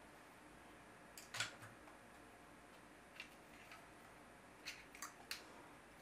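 Faint clicks and light knocks of a motherboard and an M.2 NVMe SSD with a heatsink being handled on a desk mat. The sharpest knock comes about a second and a half in, followed by a few soft clicks.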